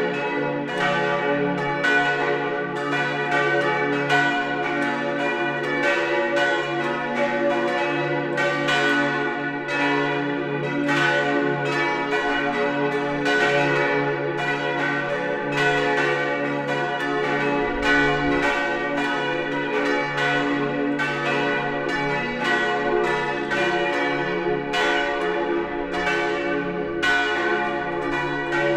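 Full peal of swinging bronze church bells, the main four tuned d', f-sharp', a' and b' (German h'), ringing together in a steady, unbroken stream of overlapping strikes with long humming decays.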